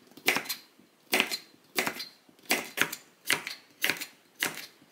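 Crinkle-cut wave knife chopping cucumber on a wooden cutting board: a steady run of crisp knocks, about two cuts a second.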